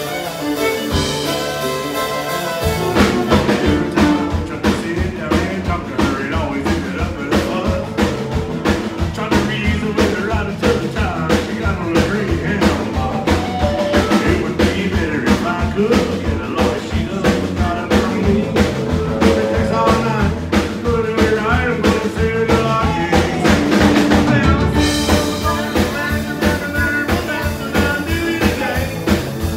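Live country band playing: a fiddle leads over guitar at first, then drums and bass come in with a steady beat about three seconds in and the full band plays on.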